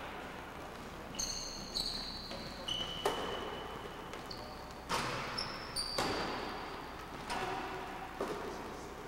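Basketball bouncing and being caught, with sharp thuds echoing in a large gym, mixed with several short high-pitched squeaks of sneakers on the hardwood floor as players cut and stop.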